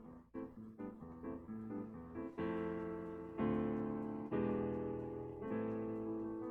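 Kurzweil SP6 stage piano playing its acoustic piano preset number 3, a sound with a little more attack. Short detached notes come about twice a second, then after about two seconds full chords are struck about once a second and held.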